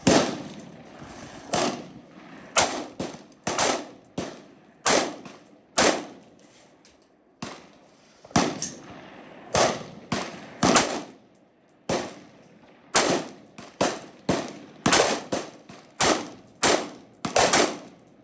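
Irregular gunfire at a shooting range: about two dozen sharp shots, some coming in quick runs under half a second apart, varying in loudness, each followed by a short echo.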